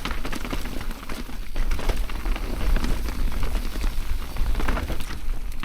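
Mountain bike riding fast down a dirt trail: tyres crackling over the ground and the bike rattling with many sharp clicks, over a constant low rumble.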